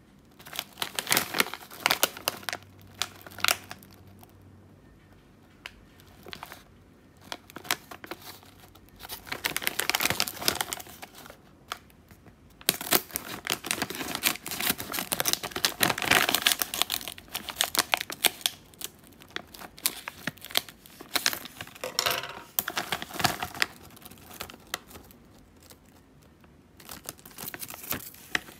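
Foil-lined plastic snack bag crinkling loudly in bursts as it is handled, cut across the top with scissors and pulled open, with quiet gaps between the bouts of rustling.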